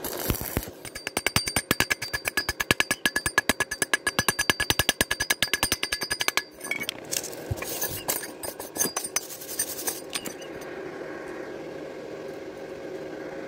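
Rapid metallic tapping, about eight to ten taps a second, with the thin steel tube ringing under each blow: slag being chipped off a freshly laid stick weld. About six seconds in the taps slow and grow irregular, then stop, leaving a low steady hum.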